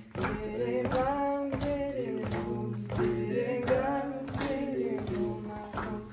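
Several voices singing a simple repetitive song together, with a melodica holding steady notes underneath.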